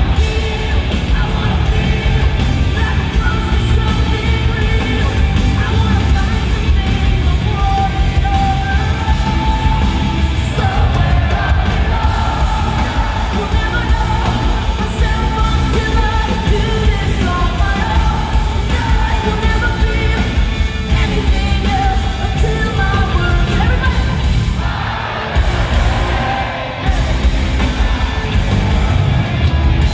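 Live rock band playing in an arena, heard from within the crowd: drums, heavy guitars and keyboards under a sung and shouted lead vocal, loud and bass-heavy. The music thins out briefly near the end before coming back in full.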